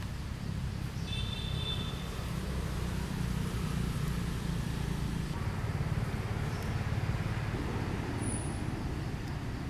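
A steady low rumble that swells in the middle and eases off near the end, with a brief high call about a second in.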